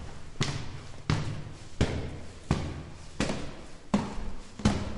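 Footsteps climbing stairs at an even walking pace, each step a sharp, distinct strike, a little faster than one a second.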